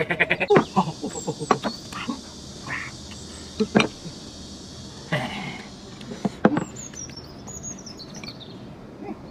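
Fast eating sounds: chopsticks clicking and scraping against a porcelain bowl in a rapid run at the start, then scattered clicks and bursts of chewing as a man shovels chopped chili peppers and rice into his mouth. A bird chirps in a short falling series near the end.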